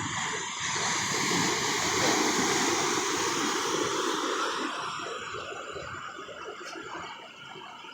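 Ocean surf: a wave breaking and washing up the beach, a rushing noise that swells about a second in and slowly fades over the last few seconds.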